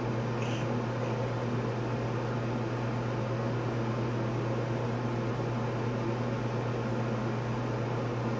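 Bathroom ceiling exhaust fan running: a steady hum with a low drone and no change in level.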